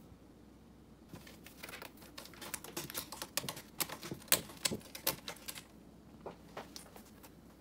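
Norwegian Forest Cat's claws and paws scratching and tapping on a corrugated-cardboard scratcher, a rapid, irregular run of clicks and scrapes that starts about a second in and thins out near the end.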